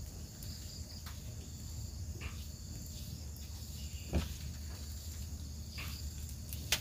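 Steady high-pitched chorus of crickets, with a few light knocks and clicks scattered through it, the loudest about four seconds in and another sharp one just before the end.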